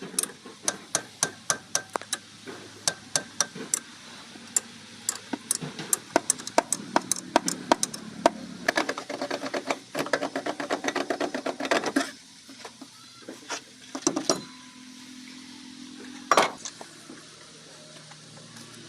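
Mechanic's hand tools on a car engine: a run of sharp metallic clicks and knocks, a few each second, thickening into a dense rattle partway through, then a pause and one loud knock near the end.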